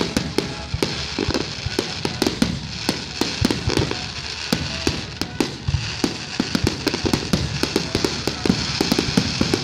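Aerial firework shells bursting in a rapid barrage, several sharp bangs a second, over a steady high hiss.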